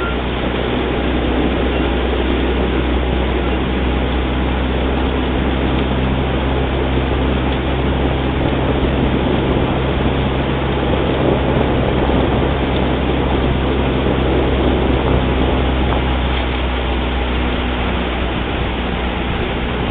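Motorboat engine running steadily, a constant low hum under a haze of wind and water noise.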